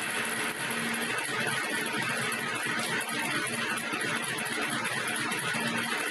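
Aluminium foil flexible duct forming machine running, with a steady, even hiss as the corrugated foil duct is formed and fed out.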